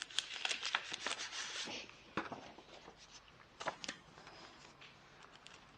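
Paper and packaging rustling and crinkling as a card-making kit is handled, busy for the first couple of seconds and then thinning to a few scattered taps and rustles.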